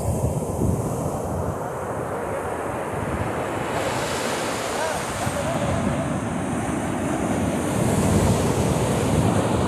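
Ocean surf breaking and washing up the sand, with wind rumbling on the microphone. The wash swells louder a few seconds in and again near the end.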